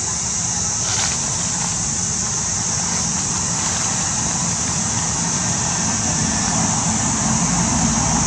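Steady outdoor background noise: a low rumble, growing a little near the end, under an even high hiss, with a faint tick about a second in.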